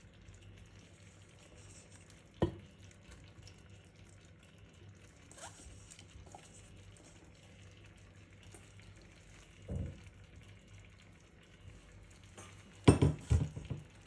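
Quiet kitchen handling sounds over a faint hiss: a sharp click about two and a half seconds in, a dull thump near ten seconds, and a quick cluster of knocks near the end, as food is set into a tagine pot.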